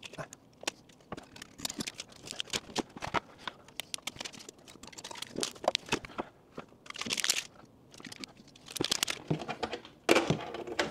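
Packing material being snipped and torn off a 3D printer's frame: a run of small clicks and snips with crinkling and tearing of plastic, and a short tearing rush about seven seconds in.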